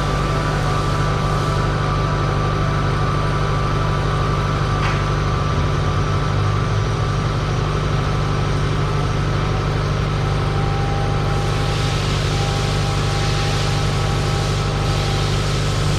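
A steady mechanical hum from a running machine, holding an even level, with a low drone and a few thin steady tones above it.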